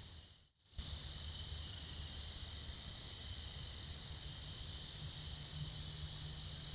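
Steady chorus of night-singing crickets, a continuous high-pitched trill, over a low hum. The sound drops out briefly about half a second in, then returns unchanged.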